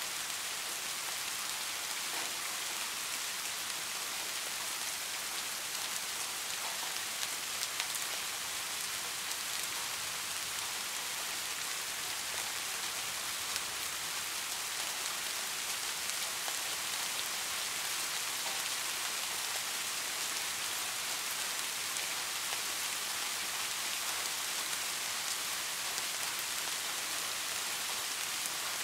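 Heavy rain falling in a steady, even hiss, with a few sharper ticks of individual drops.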